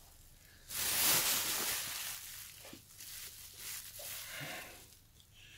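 Clear plastic bag crinkling and rustling as it is handled, loudest from about a second in, then fainter rustles and a few light clicks.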